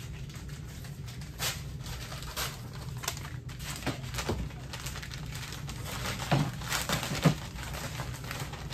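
Brown kraft-paper packaging rustling and crinkling as it is handled and opened, in irregular bursts, with the loudest crinkles about six and seven seconds in, over a steady low hum.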